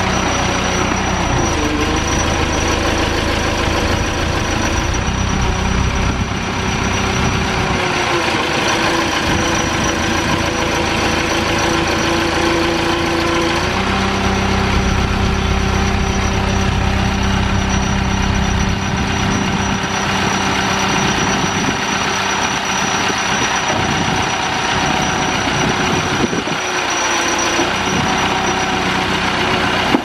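JCB backhoe loader's diesel engine running steadily while the backhoe arm lifts a water main pipe. Its note changes about a second in and again about halfway through as the hydraulics are worked.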